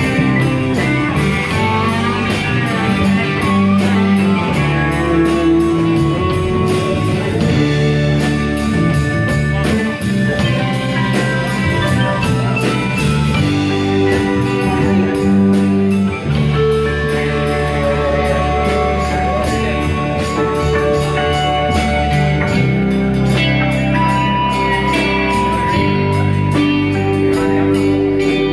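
Live rock band playing, with electric guitar and drums.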